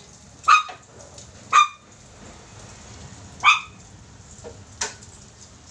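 A dog barking in single short barks: three in the first two seconds, another a little before the four-second mark, and a fainter one near the end.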